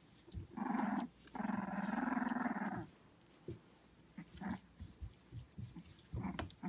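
Puppies, about two and a half weeks old, growling in play: a short rough growl, then a longer one of about a second and a half, followed by a few brief, softer grunts.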